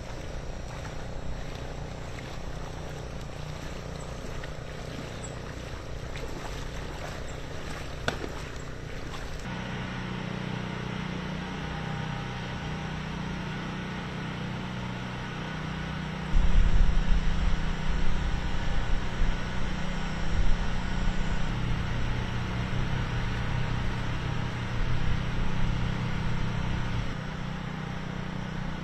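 A motor running steadily with a low hum. Just past halfway a loud deep rumble comes in and stays, rising and falling.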